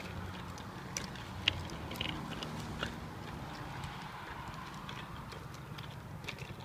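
A small child's bicycle rolling along a concrete sidewalk, a low steady rumble with scattered clicks and knocks, the sharpest about a second and a half in. Footsteps walk alongside.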